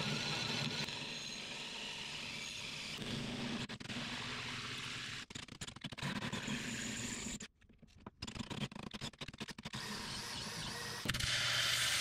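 A hand drill boring through welded steel plate, its motor running steadily under load. It stops and starts again with short breaks, followed by a stretch of irregular crackling. About a second before the end, a louder welding arc starts crackling.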